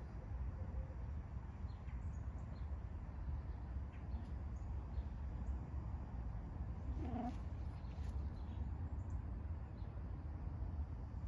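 A cat gives one short meow about seven seconds in, over a steady low background rumble and a few faint bird chirps.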